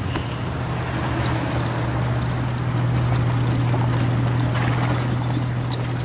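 Steady low engine drone of a military vehicle on the move, growing a little louder around the middle, with scattered clicks and knocks over it.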